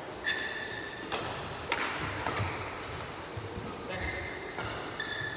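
Badminton rally: several sharp racket strikes on the shuttlecock, with two high, steady squeaks of court shoes on the floor, one just after the start and one about four seconds in.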